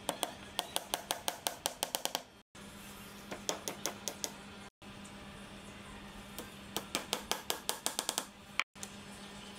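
Small hammer tapping wooden dowels into drilled holes in wooden half-lap joints: quick light taps, several a second, in three runs.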